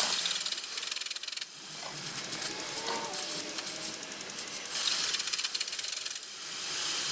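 MIG welding on an exhaust pipe: two bursts of dense, even crackling, each about a second and a half long, one at the start and one a few seconds later.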